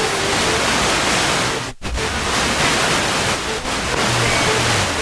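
Loud, steady static hiss from a defective microphone, drowning out the workshop sound. It cuts out abruptly for an instant a little under two seconds in.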